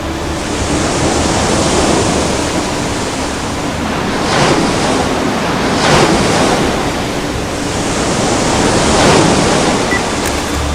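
Sea waves rushing, swelling and easing off four times.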